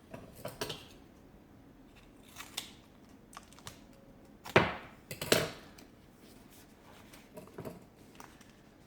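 Duct tape being pulled and pressed around a plastic canister: short bursts of tape crackle and handling clicks, the loudest pair about halfway through.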